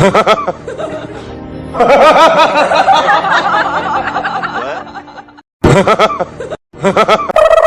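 A run of stock comedy sound effects: a short running-away effect, then a long incredulous laugh that wavers and fades out, a second short laugh, and a cheeky sting with a steady held tone near the end.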